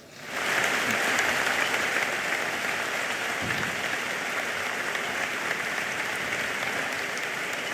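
Audience applauding steadily, starting about half a second in and dying away at the end.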